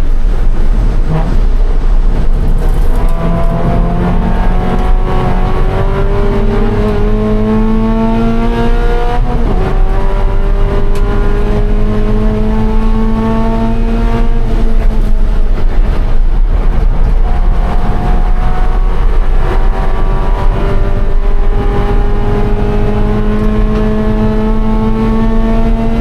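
2013 Scion FR-S's 2.0-litre flat-four engine at full throttle on track. The revs climb steadily through a gear and drop sharply with an upshift about nine seconds in. They climb again, fall away for a couple of seconds around fifteen seconds in, then rise steadily once more.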